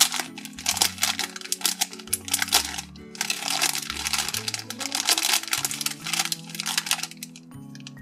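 Thin plastic packaging bag crinkling and crackling as hands handle it and pull it open, over soft background music; the crinkling stops about a second before the end, leaving only the music.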